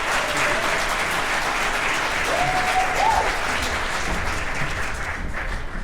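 Audience applauding after a barbershop quartet performance. A single voice calls out over the clapping about two and a half seconds in, and the applause eases off slightly near the end.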